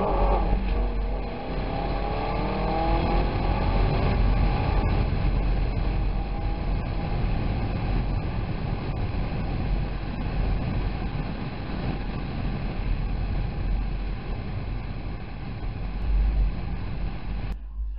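Chevrolet Camaro on the move, heard through a small camera's microphone: the engine note climbs as it revs through the first few seconds, then settles under steady road and wind noise. The sound cuts off suddenly near the end.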